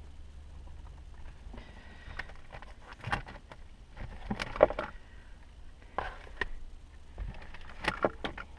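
Scattered knocks, clicks and rustles of objects being handled and shifted around inside a truck's console, with a steady low hum underneath.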